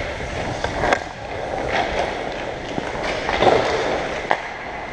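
Ice hockey skate blades scraping and gliding on the ice, with a few sharp knocks in between.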